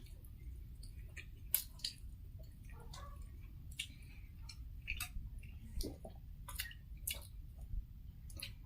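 Quiet close-up eating sounds: chewing and mouth noises of people eating puri, with scattered sharp little clicks and smacks at irregular moments.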